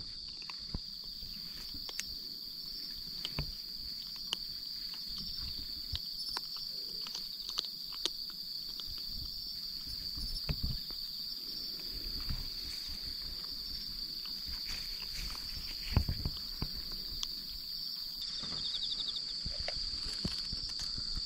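Crickets chirping in a steady, unbroken high trill, with scattered soft clicks and taps close by and a louder knock about sixteen seconds in.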